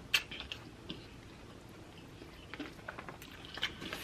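Someone chewing a mouthful of grinder sub sandwich, with scattered soft mouth clicks.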